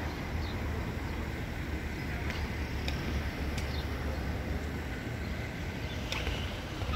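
Outdoor city-square ambience: a steady low rumble with a few faint, short, high ticks, about four over the stretch.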